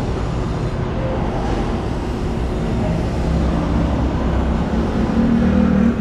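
Steady low rumble of motor vehicles and road traffic, with a faint engine hum that swells slightly near the end.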